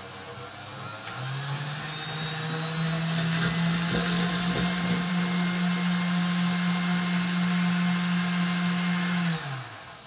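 Electric stand mixer whipping cream-cheese frosting with coconut flakes, its wire whisk turning in a steel bowl. The motor steps up in speed about a second in and hums steadily, then is switched off near the end and winds down.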